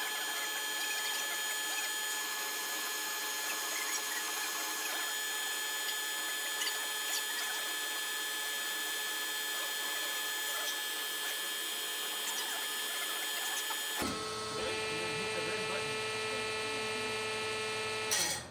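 Large metal-cutting bandsaw cutting through a steel bar, a steady ringing whine with many high tones. About fourteen seconds in, the sound changes and turns lower. It stops abruptly near the end.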